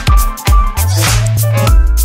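Electronic funk-style background music with deep sustained bass notes and sharp drum hits about twice a second.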